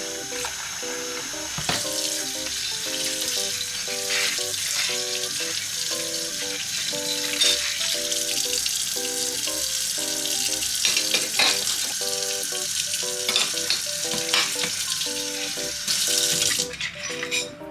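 Tap water running into a stainless steel kitchen sink as soapy ceramic plates and bowls are rinsed under it, with a few sharp knocks of dishes. The water cuts off near the end. Soft background music plays throughout.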